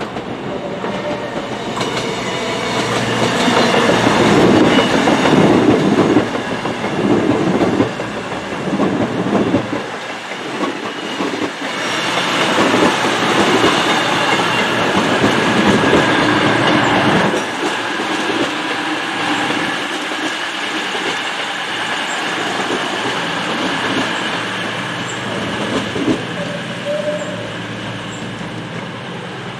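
A train running past on the rails, with knocks from the wheels over the track; it builds over the first few seconds, is loudest through the middle, and dies away toward the end.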